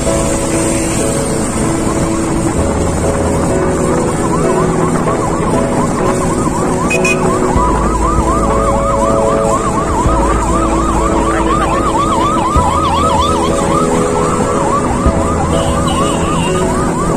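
Ambulance siren yelping in fast rises and falls, about three a second, coming in about four seconds in and growing louder, over background music.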